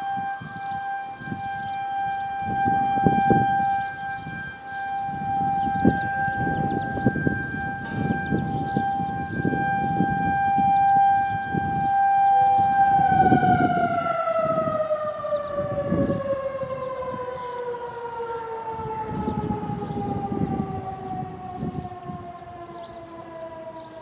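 Federal Signal 2001 outdoor warning siren sounding a steady single tone during a test, then winding down about halfway through, its pitch falling smoothly to the end. The uploader altered the recording's pitch from the real siren.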